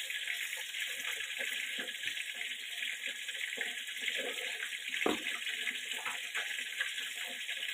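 Steady hiss of fish frying in hot oil, with plastic bag crinkling and light clicks as the seafood is handled.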